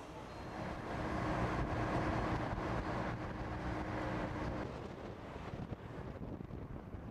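Road and wind noise of a car driving at speed on a highway, heard from inside the moving car. It swells about a second in, with a steady hum, and eases a little after about four and a half seconds.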